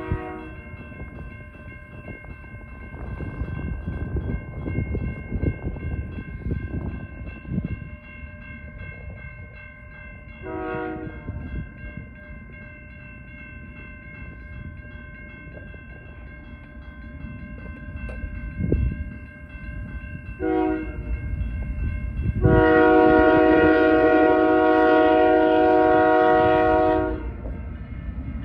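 Diesel freight locomotive's air horn sounding for a grade crossing: a brief blast about ten seconds in, a short one near twenty seconds, then a loud long blast held about four to five seconds. A crossing-signal bell rings steadily throughout, over the low rumble of the approaching train.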